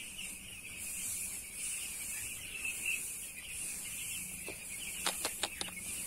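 A flock of eight-day-old broiler chicks peeping together in a steady high chorus, with a few sharper, louder chirps standing out about five seconds in.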